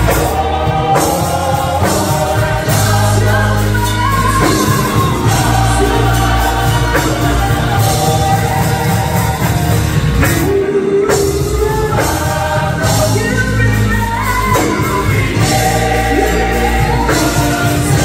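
Samoan church choir, mostly women's voices, singing in full voice through hand-held microphones and a PA, over amplified instrumental backing with a strong bass.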